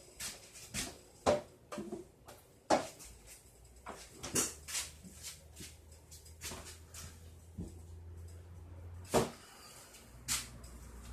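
Kitchen clatter: a string of sharp knocks and clicks at irregular intervals. A low hum comes in about three seconds in and stops near the end.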